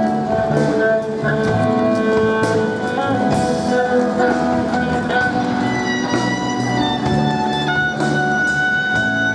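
A live band playing instrumental music: electric guitar and violin over drums. The violin holds long high notes in the second half.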